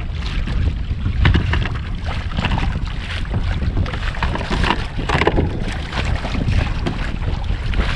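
Wind buffeting the microphone, with choppy waves slapping and splashing against a kayak's hull in short irregular bursts.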